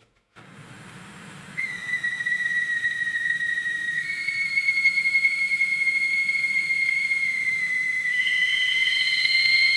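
A steady, high whistling tone over a hiss. It starts about a second and a half in, steps up slightly in pitch about four seconds in, and a second, higher whistle joins near the end as it grows louder.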